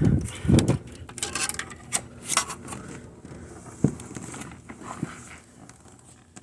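Handling noises from work inside a computer case: a couple of dull knocks, scraping, and sharp plastic clicks as a hot-glued RAM stick is worked out of its slot, dying down near the end.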